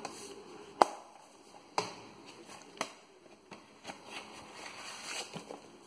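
Hands handling a metal steelbook Blu-ray case and a cardboard slipcase: a few sharp taps and clicks about a second apart, the first the loudest, with soft rustling between.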